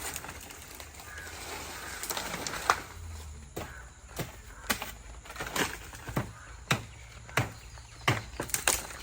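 A series of sharp chopping or striking blows, about one to two a second, coming faster near the end.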